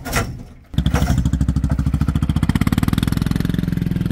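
A small engine running with a rapid, even putter, coming in abruptly about a second in.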